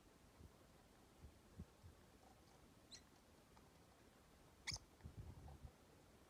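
Faint, brief high-pitched chirps from rosy-faced lovebirds, two in all, the second about two-thirds through and the louder, over soft taps and scuffles of the birds moving about a coconut-shell hide.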